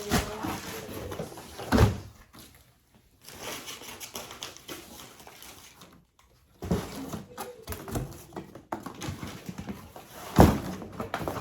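Packaging being handled and opened: rustling and crinkling with a couple of sharp thumps, one about two seconds in and one near the end.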